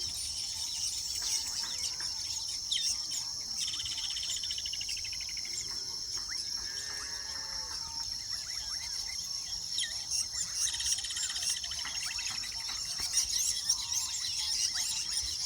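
A weaver bird colony chattering, with many short chirps, ticks and buzzy trills over a steady high insect drone.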